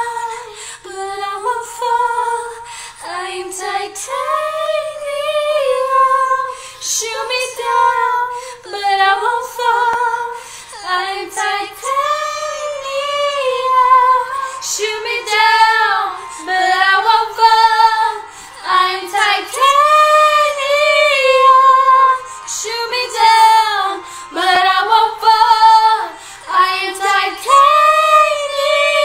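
A woman and a young girl singing a pop song together, with long held notes.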